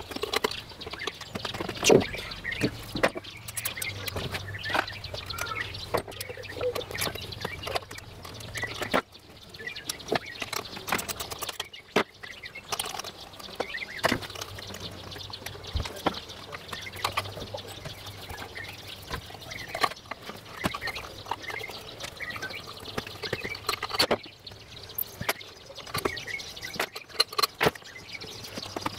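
Irregular clicks and knocks of hands and a screwdriver working on a Faema MPN grinder's metal burr housing, with a sharper knock about two seconds in. Birds chirp in the background.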